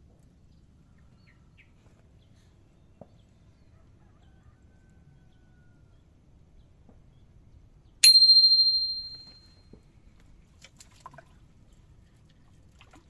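A small metal bell rings once, about two thirds of the way through: a sharp strike followed by a clear ringing tone that fades out over about a second and a half. It is the kind of bite bell on a fishing rod that signals a fish taking the bait, followed by a few faint clicks of the rod being handled.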